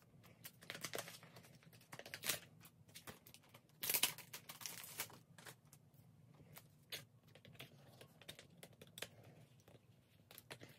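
Photocards being slid into clear plastic binder sleeve pockets: light ticks and soft rustling of card against plastic, with a louder rustle about four seconds in.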